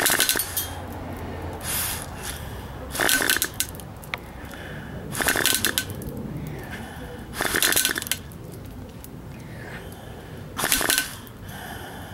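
Homemade pill-bottle airsoft gun firing: five short bursts of rushing air a few seconds apart, with a couple of faint ticks between them.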